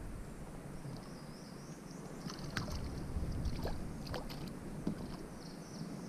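Water lapping and sloshing against the side of a small fishing boat, with a handful of sharp knocks and clicks.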